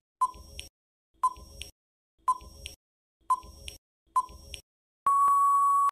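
Countdown timer sound effect: five short identical ticks about a second apart, then one longer steady beep near the end as time runs out.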